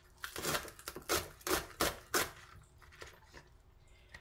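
Kitchen knife slicing a green onion on a wooden cutting board: a run of crisp cuts, about six in the first two and a half seconds, then a few faint ones.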